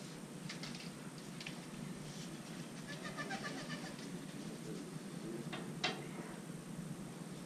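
Billiard balls clicking together twice in quick succession, near the end. Earlier comes a brief, squeaky, meow-like tone.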